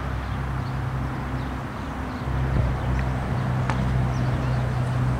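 Wind buffeting a camera's built-in microphone: a steady low rumble that grows louder about two seconds in. Two short sharp clicks stand out about three seconds in and just after.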